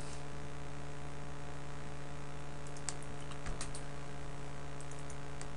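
Steady electrical mains hum under a handful of light computer clicks, a cluster about three seconds in and a few more near the end.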